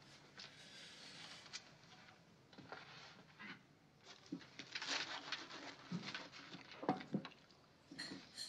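Quiet clinks and knocks of plates and cutlery at a dinner table, with soft footsteps as a plate is brought in and set down. The sharpest knocks come about two-thirds of the way through.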